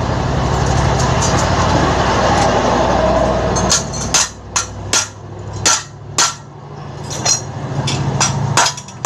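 A metal pipe used as a hammer strikes the head tube of a child's bicycle frame about ten times, sharp metal-on-metal blows at an irregular pace, starting about four seconds in, driving a part into place. Before the blows, a loud steady rumble with a low hum fills the first few seconds.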